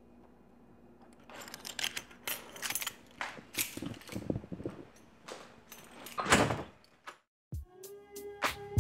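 Scattered clicks, rattles and rustling of a handheld camera being moved around a room, with a louder knock and rustle about six seconds in. After a brief drop to silence, music with a held note and drum hits starts near the end.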